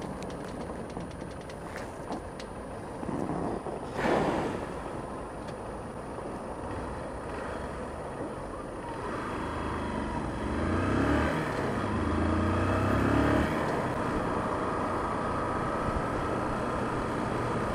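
Honda CBF125 single-cylinder motorcycle engine ticking over at idle, then revving up in steps through the gears as the bike pulls away, about ten seconds in. A brief rush of noise about four seconds in.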